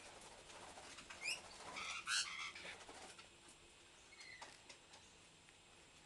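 Parrots calling: a few short rising chirps about a second in, a louder harsh call around two seconds in, and a faint chirp a little after four seconds.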